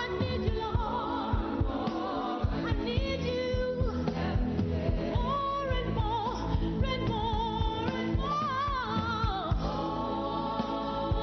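A worship team of several singers singing a gospel song into microphones over a live band with a steady drum beat.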